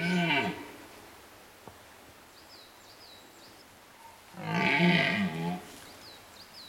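Twelve-point red deer stag roaring in the rut: one roar ends just after the start and a second, about a second long, comes about four seconds in.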